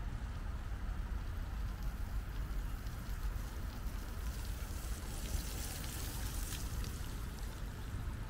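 Outdoor ambience: wind rumbling on the microphone under a steady hiss, which swells for a couple of seconds about halfway through.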